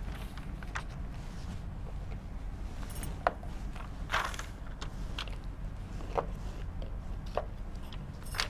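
Sheets of paper pressed and smoothed onto a whiteboard: scattered light taps and clicks with a brief paper rustle about four seconds in, over a steady low hum.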